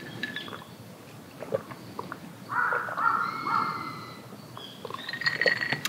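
A crow cawing three times in quick succession about two and a half seconds in, with faint high bird calls around it.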